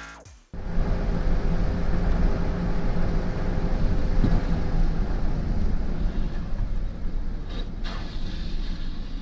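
Electronic music cuts off about half a second in. It is followed by a steady low rumble of a vehicle's engine and road noise as it drives.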